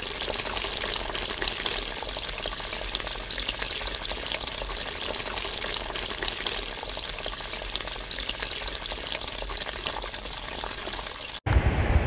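Running water: a steady rushing flow that cuts off abruptly shortly before the end.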